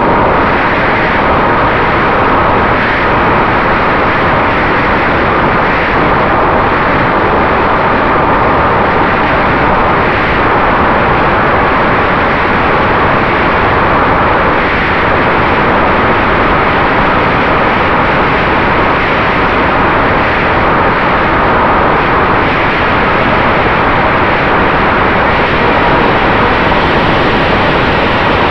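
Onboard recording of a Ritewing Mini Drak flying-wing FPV plane in flight: a loud, steady rush of wind over the camera's microphone mixed with the electric pusher motor and propeller, with a faint steady whine underneath.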